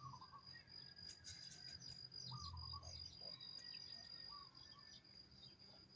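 Faint outdoor ambience: a steady high insect trill, with short bird chirps now and then.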